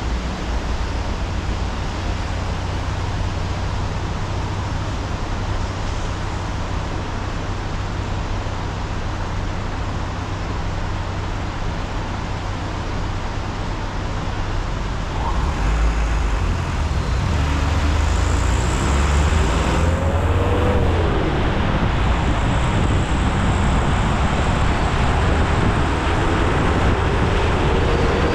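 Steady road noise of a car driving on wet roads in the rain: tyre hiss over a low rumble, getting louder about halfway through.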